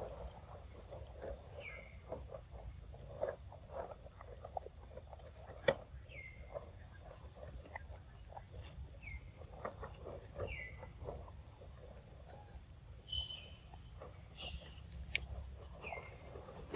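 Long-tailed macaque eating ripe papaya: irregular small wet smacks and squelches as it bites and chews the soft flesh. A few short falling chirps and a faint steady high whine sound in the background.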